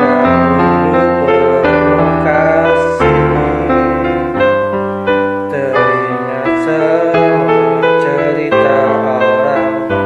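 Instrumental break of a slow pop ballad played on keyboard: held chords changing every half-second or so, with a melody line over them.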